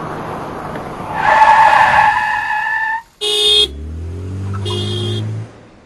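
Toyota Prius tires squealing in a skid for about two seconds, a steady high squeal, followed by two short car-horn honks with an engine note rising in pitch between them.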